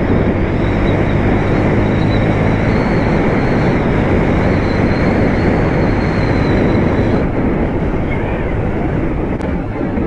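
KTM Duke motorcycle engine running steadily while riding along a road, mixed with wind rush, heard from the rider's position; it eases off slightly about seven seconds in.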